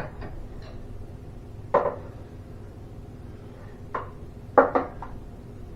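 Metal clinks and knocks of steel winding bars against a garage door torsion spring's winding cone as the spring is wound up one turn at a time: a single knock about two seconds in, then three more close together near the end.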